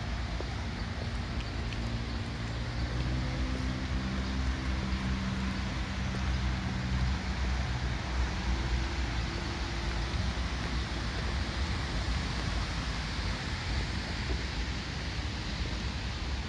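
A low engine drone whose pitch shifts a little over the first ten seconds or so, over a steady rushing noise.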